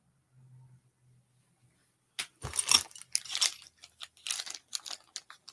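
Crinkling, rustling and light clicking of small objects being handled and rummaged through, starting about two seconds in, in a search for a tool to loosen a knob.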